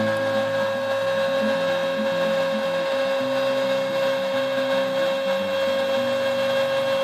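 Homemade CNC machine running: the wood router spindle's steady high whine, with the stepper motors' lower tones jumping from pitch to pitch as the axes change speed and direction.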